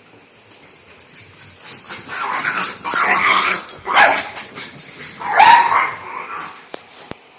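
Two dogs playing rough together, barking and yipping, with the loudest barks about four and five and a half seconds in.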